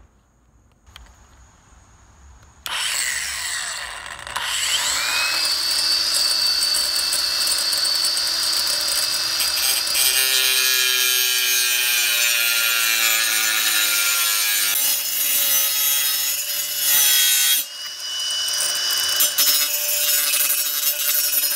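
A Ridgid Octane cordless angle grinder starts about three seconds in, its whine rising as the disc spins up, then runs steadily. From about halfway the cut-off disc is grinding through a floor transition strip, giving a harsh, gritty cutting noise with a brief break near the end.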